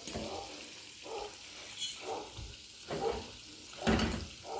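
Chicken pieces frying in hot oil in a pot, a steady sizzle, with a sharp knock about four seconds in.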